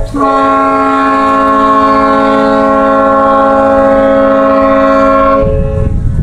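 Fireboat's horn sounding one long, steady blast of several blended tones, cutting off about five seconds in.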